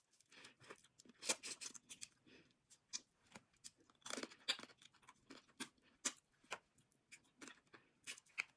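Close-up eating of seafood from a seafood boil: irregular wet clicks and crackles of shells being cracked and peeled, with chewing, louder for a moment about a second in and again around four seconds.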